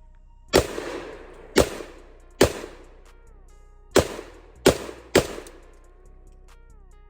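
Six gunshots: three about a second apart, then after a short pause three more in quicker succession, each with a brief echoing tail.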